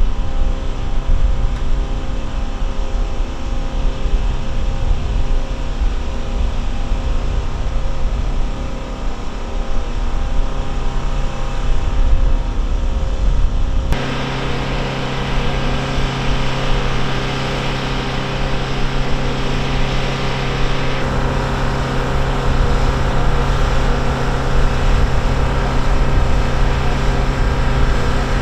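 Steady aircraft turbine noise on a military airfield ramp: a constant hum with several held tones under a hiss. About halfway through it shifts abruptly to a brighter hiss with a stronger hum.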